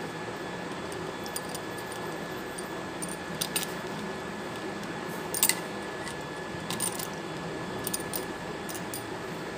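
A few light clicks over a steady faint hiss, around an aluminium pressure cooker of horse gram soaking in water; near the end a hand stirs the gram and salt through the water.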